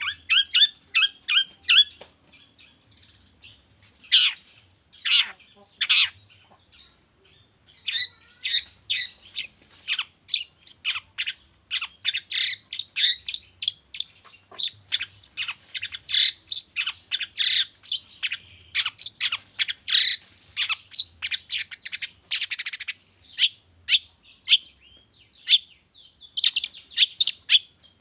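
Long-tailed shrike (cendet) singing in fast runs of sharp chirps and chattering notes. A few longer downward-sliding calls come about four to six seconds in, and a brief harsh buzz comes late on.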